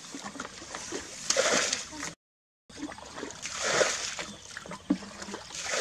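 Splashing and sloshing of legs wading through shallow muddy water, in uneven bursts, with the sound cutting out for a moment about two seconds in.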